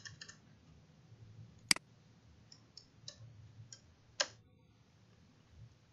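Computer keyboard keystrokes and mouse clicks: a quick run of light key taps at the start, then scattered clicks, with two sharper, louder clicks about one and a half seconds in and about four seconds in.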